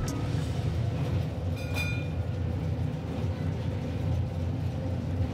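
Electric heritage tram running along its track, heard from inside the car: a steady low rumble of the wheels and running gear, with a brief high-pitched tone about two seconds in.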